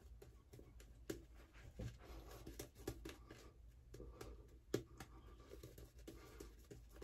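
Shaving brush working lather over the face: faint, irregular scratchy strokes of wet bristles against skin, with one louder stroke a little before five seconds in.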